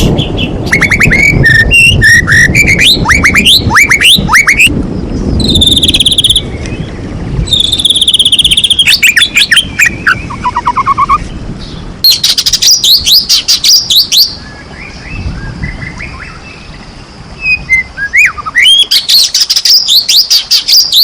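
White-rumped shama (murai batu) singing loudly in varied phrases: bursts of fast sweeping whistles, rapid trills held for about a second, and short pauses between phrases.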